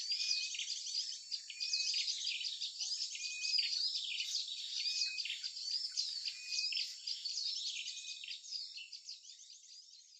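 Recorded lure track of many small songbirds chirping and twittering together, played back as a trapping call, with a short steady whistle note repeating about every second and a half. It fades out near the end.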